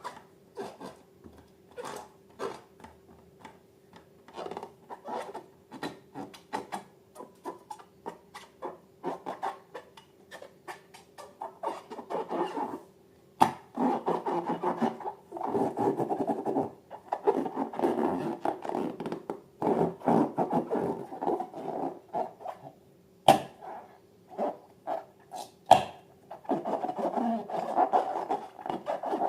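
Balloons and slime being handled, squeezed and rubbed: bursts of rubbing and scraping with many scattered sharp clicks, heaviest through the middle and again near the end, over a faint steady hum.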